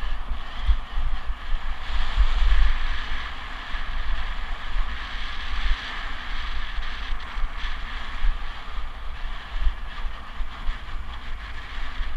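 Wind buffeting an action-camera microphone on a mountain bike rolling fast down a dirt and grass track, with a steady hiss of tyre noise underneath.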